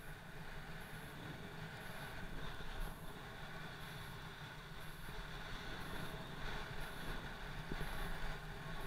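Wind rushing over an action camera's microphone during a snowkite ride: a steady low rumble and hiss with no clear breaks.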